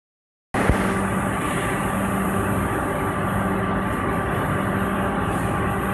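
PET preform injection molding machine with robot arm pickup running, a steady mechanical drone with a steady hum; it starts abruptly about half a second in.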